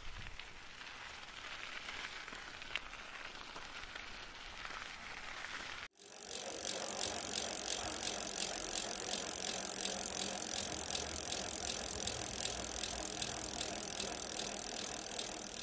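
A bicycle riding, faint at first and then louder after a cut about six seconds in, with a steady hiss and a rapid even ticking from the rear freewheel as it coasts.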